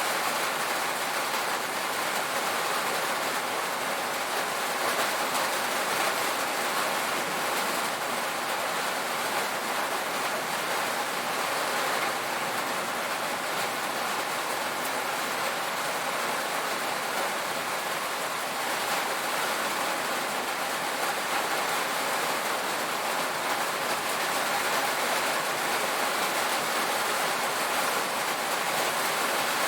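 Steady rain drumming on a tin roof, a dense even patter of drops with no let-up.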